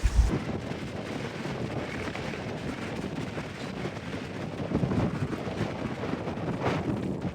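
Strong gusty wind rushing steadily, swelling around five seconds in and again near seven. Heavy wind buffeting on the microphone cuts off just after the start.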